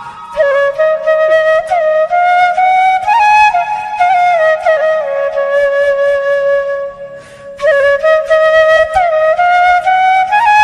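Background music: a solo flute playing a melody with sliding, bending notes, breaking off briefly about seven seconds in.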